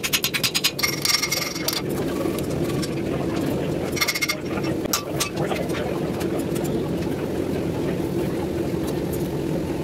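A forge with a steady rushing noise, with quick runs of ringing metal-on-metal taps near the start and again about four seconds in.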